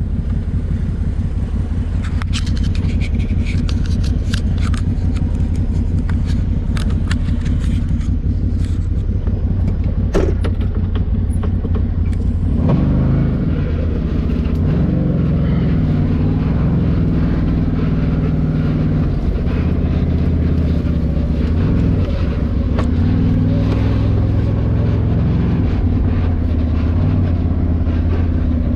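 Can-Am Maverick Sport side-by-side's Rotax V-twin engine running under way, with scattered sharp knocks through the first ten seconds. From about twelve seconds in, the engine note rises and falls as the throttle is worked.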